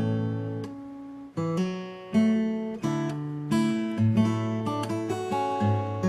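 Instrumental background music: plucked chords, each note starting sharply and dying away, a new chord every half second to a second, with a short lull about a second in.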